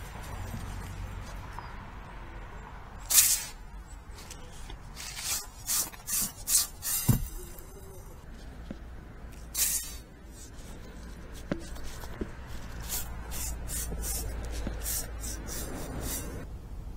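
Steel-wire chimney brush on a rope scraping against the walls of a sooty brick flue as it is worked up and down. It makes a series of short, irregular rasping scrapes, with a few dull knocks.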